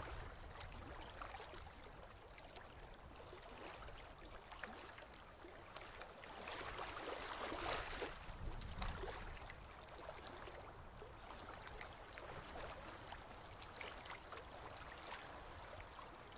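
Faint, muffled underwater water sound from a camera below the surface: a steady wash with scattered light clicks and crackles, swelling for a couple of seconds about seven seconds in.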